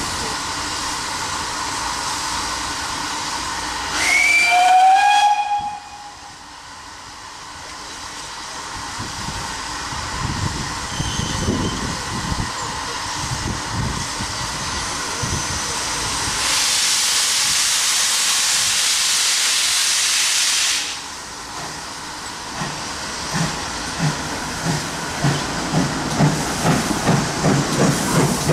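GWR 6400 class pannier tank No. 6430 gives one short blast on its steam whistle, and a few seconds later lets off a hiss of steam for about four seconds. Near the end its exhaust beats start, slow at first and then coming faster, as the engine moves off with its auto-train.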